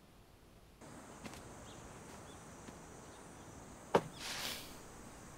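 Faint outdoor ambience with a steady, high insect drone, like crickets or cicadas, setting in about a second in. About four seconds in there is a single sharp click followed by a short breathy hiss.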